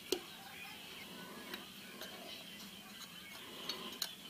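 A few light metallic clicks and clinks from engine parts being handled while a connecting-rod bearing is fitted on the crankshaft, one just after the start with a short ring and a couple near the end, over a faint steady background.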